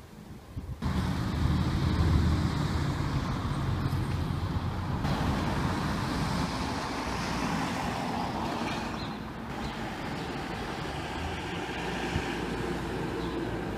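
Road traffic noise: a vehicle passes close by starting about a second in, followed by steady traffic hiss and rumble that changes abruptly twice, about five and nine seconds in.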